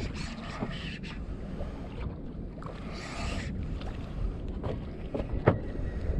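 Wind noise on the microphone over water lapping around a small boat, with two short hissing rushes and a sharp knock about five and a half seconds in.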